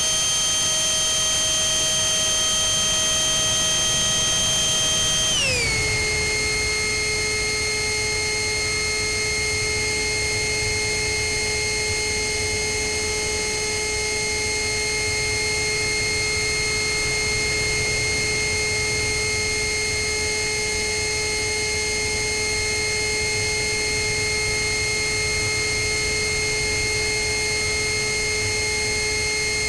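Electric ducted fan of a small RC jet (GWS 64 mm fan on a Cyclone Power CP400 brushless motor) whining steadily in flight, with rushing air underneath. About five seconds in the fan slows and its whine drops in pitch, then holds steady at the lower pitch.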